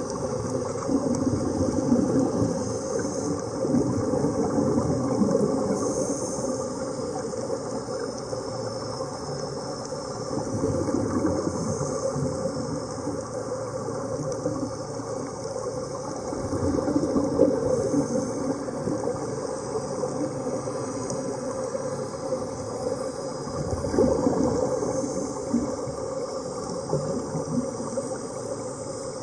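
Underwater recording: a steady rushing, bubbling noise from air streaming out of helmet-diving helmets. It swells every few seconds.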